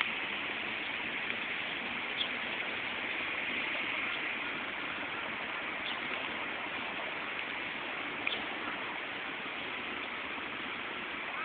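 Steady hissing background noise with no clear source, broken by a few faint clicks about two, six and eight seconds in.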